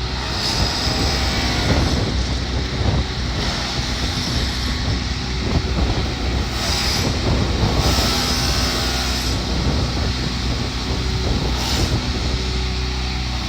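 Heavy diesel machinery running steadily under many metal clanks and knocks, with a few short scraping squeals about halfway through.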